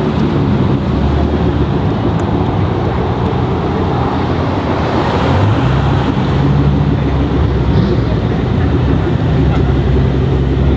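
Car engines running and revving close by as cars pull off from a car meet, a low engine rumble that steps up and down in pitch, with a swell of noise about halfway through as a car goes past.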